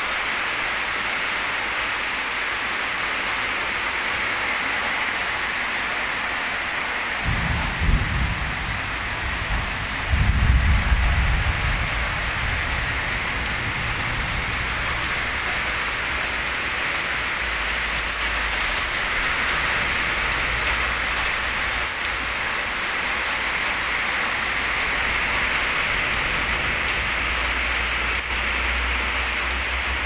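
Heavy rain pouring steadily, with low rumbles of thunder about seven and ten seconds in, the second the loudest, and a fainter rumble near the end.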